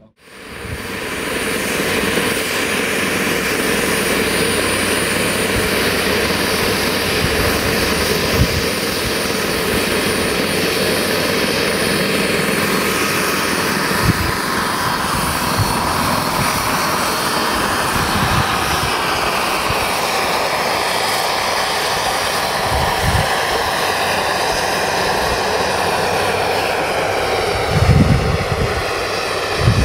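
Radio-controlled scale model helicopter running at flight power: steady rotor and engine noise with a thin high whine on top. The sound swells in during the first second, and the pitch sinks slowly in the second half as the model flies off.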